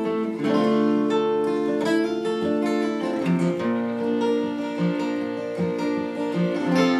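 Two acoustic guitars strumming together, with a fiddle playing long bowed notes over them in an instrumental passage before the singing.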